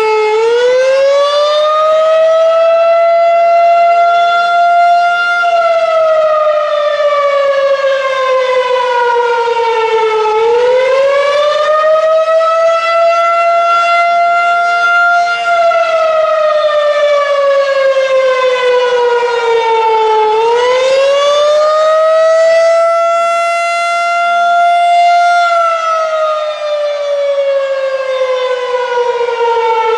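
Federal Signal 2001-SRN electromechanical siren sounding the attack signal. It is a loud wail whose pitch climbs quickly, holds briefly, then slides slowly down, repeating about every ten seconds.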